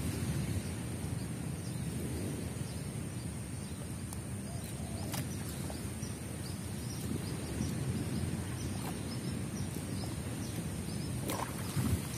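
Wind rumbling on the microphone over water sloshing as a fishing net is hauled in by hand through waist-deep swamp water, with a few sharp splashes, the loudest near the end.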